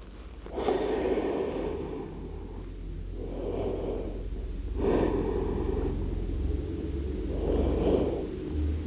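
A person breathing slowly and deeply in a yoga stretch: four long, airy breath sounds in turn, inhaling through the nose and exhaling.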